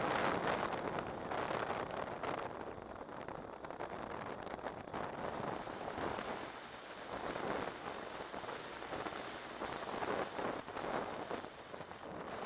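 Wind rushing over the camera microphone on a moving motorcycle, mixed with road noise, rising and falling in strength.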